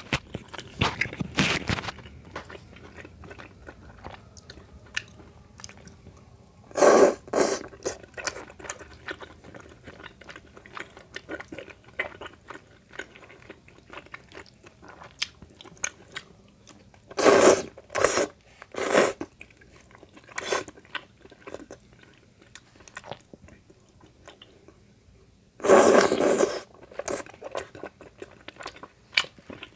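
Close-miked mouth sounds of a person eating spicy tteokbokki rice cakes and noodles: steady wet chewing with small clicks, broken by three louder noisy bursts of under a second each, about a quarter of the way in, past halfway and near the end.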